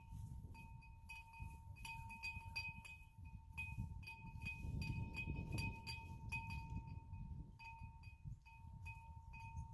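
Wind chime ringing over and over at the same two pitches as the breeze knocks it, over a low rumble of wind on the microphone.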